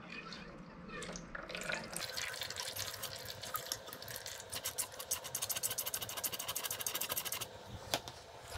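Motorcycle fork being pumped by hand over an oil drain pan, squirting and gurgling old fork oil out. It builds into a fast run of wet clicks and spurts that stops suddenly near the end.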